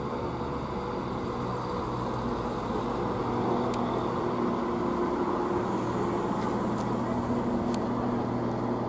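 CrossCountry Class 170 Turbostar diesel multiple unit drawing into the platform, its underfloor diesel engines giving a steady low drone with a few held tones, growing a little louder as the cab comes alongside. A few faint ticks are heard over it.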